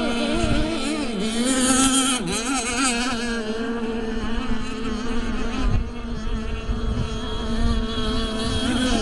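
Several radio-controlled racing boats' motors running at speed, a steady high buzz whose pitch wavers and dips as the boats race and turn.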